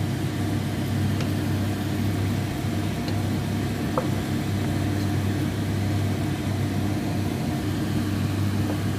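Chicken adobo in coke sauce boiling in a pan on a gas stove, under a steady low mechanical hum, with a few faint clicks.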